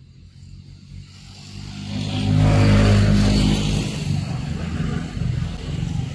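A motor vehicle passing close by, its engine growing louder to a peak about halfway through, then easing off but still running.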